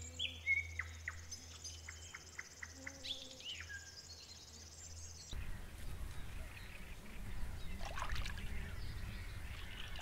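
Several wild birds chirping and whistling, with a steady high trill, over a low hum. About five seconds in, the sound changes abruptly to beavers splashing and sloshing in water.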